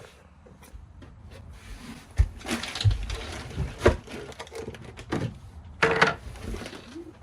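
Handling noise from work among boat wiring behind a panel: a few dull knocks and scraping rubs, loudest two to four seconds in, with another scrape about six seconds in.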